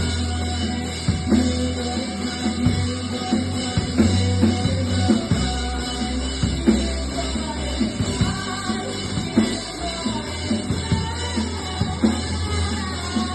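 Live rock band playing, with a drum kit keeping a steady beat under sustained low bass notes that change every second or two.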